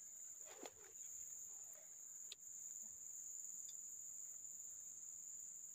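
Insects chirring steadily at one high pitch, faint, with a couple of faint short clicks about half a second and two seconds in.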